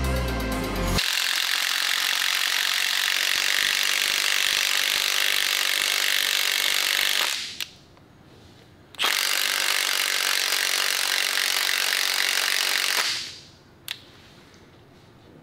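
A power tool running with a steady, hissing noise in long runs of several seconds. It stops twice, each time with a small click.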